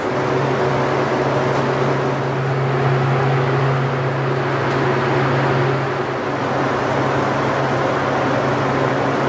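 Electric bowl mixer running steadily as it churns thick gaz nougat dough: a constant low motor hum under an even whirring noise, dipping slightly about six seconds in.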